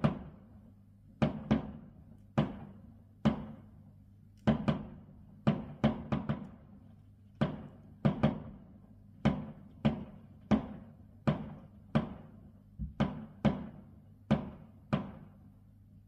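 Aerial firework shells bursting in a rapid, irregular string of bangs, about two a second, each with a short echoing tail.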